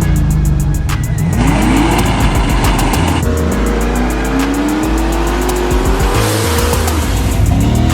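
Car engine revving, its pitch climbing in rises, one long and slow in the middle, over background music with a steady beat.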